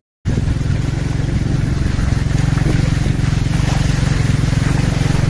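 An engine running steadily, with a low even hum that cuts in abruptly after a moment of silence.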